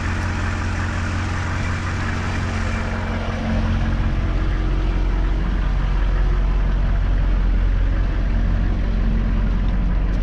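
A 6.2-litre diesel V8 in an M1008 CUCV military pickup idling steadily as a low, even hum. The low end grows louder about three and a half seconds in.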